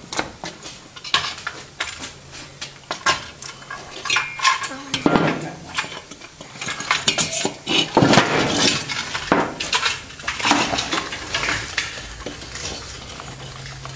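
A valve being lapped into its seat in an air-cooled Volkswagen cylinder head with fine grinding paste: irregular gritty metal-on-metal scraping and clinking, louder in stretches about a third of the way and halfway through.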